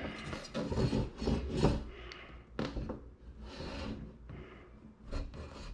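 A TV wall-mount bracket being slid and pressed against wood wall panelling while it is positioned: irregular scrapes and rubbing on the wood, with a few light knocks.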